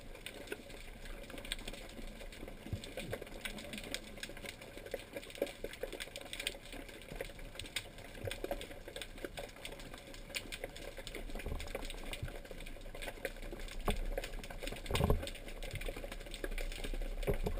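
Faint underwater ambience picked up through a camera's waterproof housing: a steady crackle of scattered small clicks over a low hum, with a louder knock about 15 seconds in.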